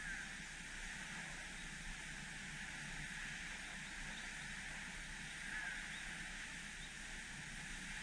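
Steady rushing of water, with a few faint short bird calls, one at the very start and one about five and a half seconds in.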